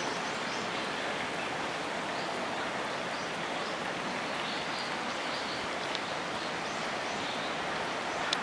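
Steady rushing outdoor background noise in a zoo bird enclosure, with faint high bird chirps now and then.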